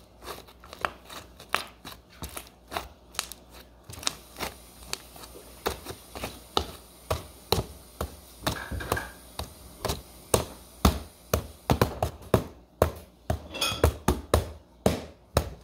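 Hands working slime, pressing and poking it so that it makes a run of sharp pops and clicks, about two or three a second at an uneven pace.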